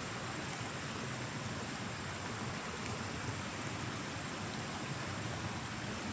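Muddy river flowing: a steady, even rushing, with a faint high steady tone above it.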